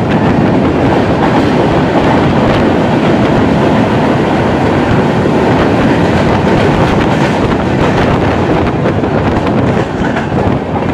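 Train running through a tunnel, heard from aboard the moving train: a loud, steady rumble and rattle of wheels on the rails. It gets quieter about ten seconds in as the train comes out of the tunnel into the open.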